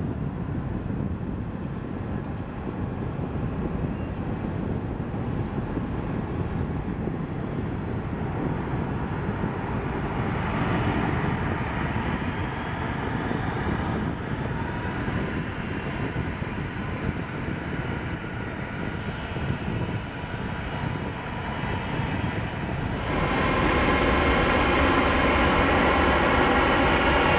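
Boeing 747-400ER's four jet engines running at taxi power: a steady rumble with a whine in it. About three-quarters of the way through it becomes suddenly louder and more whining.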